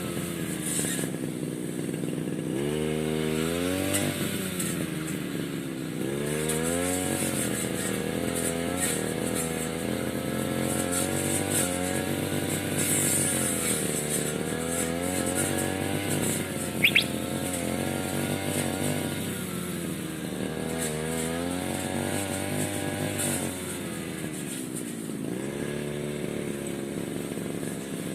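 The small petrol engine of a grass cutter running and being revved up and down several times, its pitch rising and falling. There is a brief sharp high-pitched sound about seventeen seconds in.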